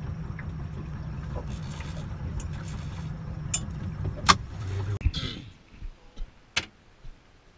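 A boat's engine running steadily underway, a low drone heard inside the wheelhouse cabin, with a few sharp clicks, the loudest a little after four seconds in. About five seconds in the drone stops abruptly, leaving a much quieter stretch with a few isolated clicks.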